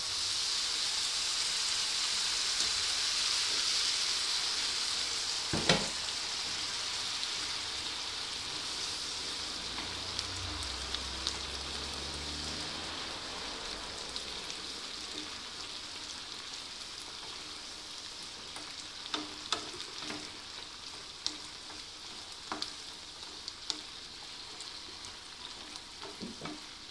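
Chopped red and yellow bell peppers and onion sizzling in a frying pan: the sizzle jumps up at the start as a splash of pasta cooking water hits the hot pan, then slowly dies down. A wooden spatula stirs through it, with one sharp knock against the pan about six seconds in and a few lighter clicks later on.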